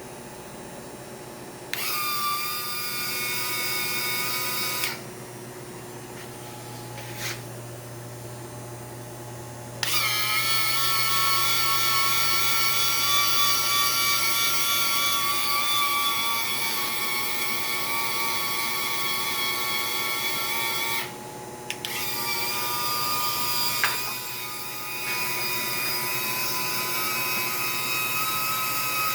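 Small electric motor whining at a steady high pitch in several runs of a few seconds to about eleven seconds, switching on and off, over a steady low hum.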